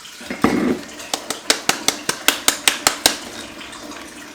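Ground coffee poured into the paper filter of a drip filter coffee machine: a short rush of grounds, then a quick run of about a dozen sharp clinks, about five a second, as the container is knocked against the filter basket.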